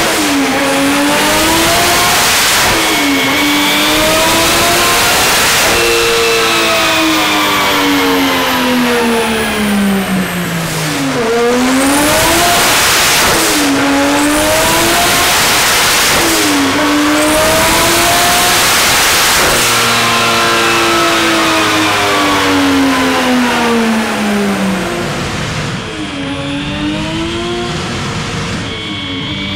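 Turbocharged Mercedes M104 inline-six in a drift car running on a chassis dyno, revving up and falling back again and again in long sweeps of pitch, with a loud hissing rush at several of the peaks.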